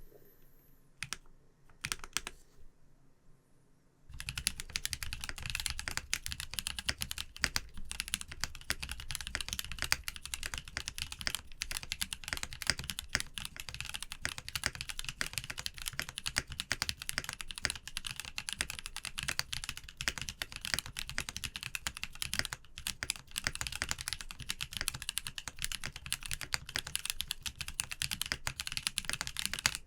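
Mechanical keyboard with factory-lubed Kailh Xuan tactile switches being typed on: a few separate keystrokes, then fast continuous typing from about four seconds in.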